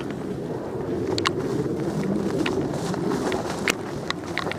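Footsteps and rustling as someone pushes through tall grass and brush, with several scattered sharp clicks or snaps.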